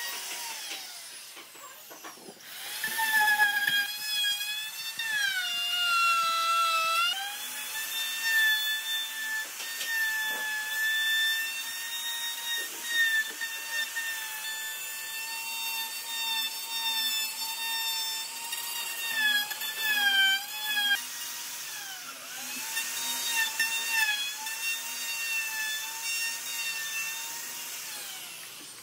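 Handheld electric plunge router running with a high whine as its spinning bit cuts into a wooden slab. The pitch sags and recovers several times as the bit takes heavier load.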